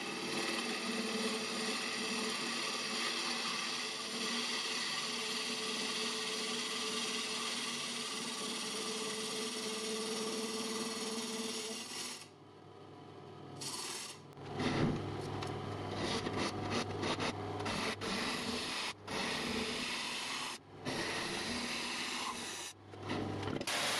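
Wood lathe spinning an old, dry end-grain bowl blank while a bowl gouge cuts its inside: a steady scraping hiss over the lathe's hum. About halfway through the sound drops low for a couple of seconds, then returns in choppy stretches broken by several sudden gaps.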